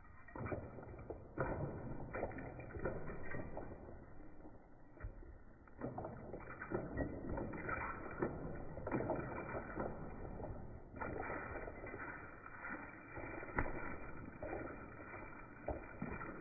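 Water splashing and sloshing in irregular bursts with scattered knocks, slowed down with the slow-motion footage so that it sounds deep and dull.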